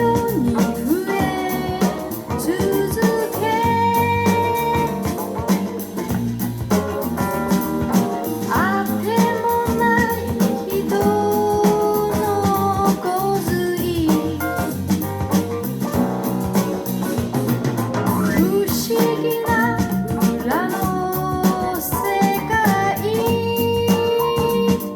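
Canton Plus X.2 bookshelf speakers playing a vocal-focused pop song: a woman singing over guitar, bass and drums.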